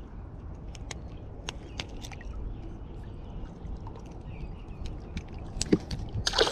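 A small flathead dropped back into shallow river water: a sharp splash near the end, over a low steady rumble and scattered light clicks from handling the fish.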